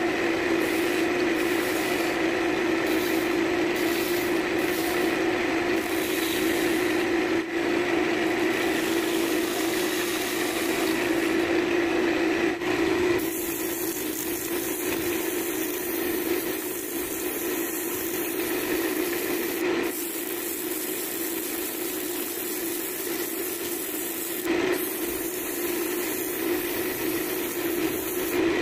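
Wood lathe running with a steady hum while a turning tool cuts the spinning cherry wood, a scraping hiss that comes and goes. About halfway through the cutting stops and a smoother, steadier hiss of sandpaper held against the spinning wood takes over.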